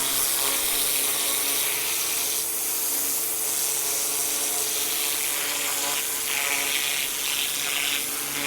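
AIVOLT electric pressure washer running: a steady motor hum under the hiss of the turbo nozzle's high-pressure water jet blasting a concrete driveway. The hiss turns brighter for a couple of seconds around six seconds in.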